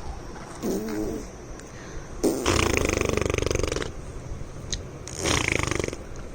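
A small child making funny sounds with the voice: a short pitched vocal sound about a second in, then a long, loud, rattling snore-like noise and a shorter one near the end.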